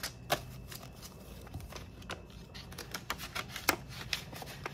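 Paper banknotes rustling and snapping as a stack of bills is handled and slid into a cash envelope, with several short crisp clicks scattered through.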